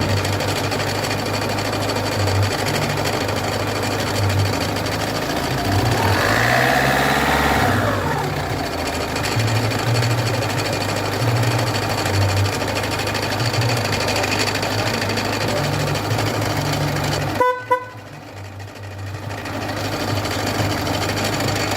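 Peugeot 206 1.4 HDi four-cylinder diesel engine running with a loud noise from its damaged crankshaft pulley, a steady uneven low clatter. About three-quarters of the way through, a short tone is heard, the sound drops away sharply, then builds back up over a couple of seconds.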